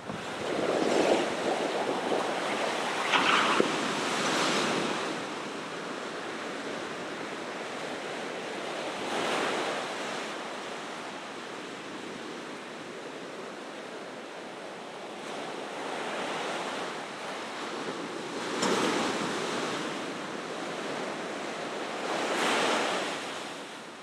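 Ocean surf: waves breaking and washing toward shore in a continuous rush, swelling into louder crashes several times, with a cluster of them in the first few seconds and more near the end.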